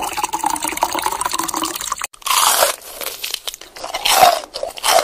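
Loud crunching and crackling: a dense crackle for about two seconds, a brief break, then three separate crunchy bursts.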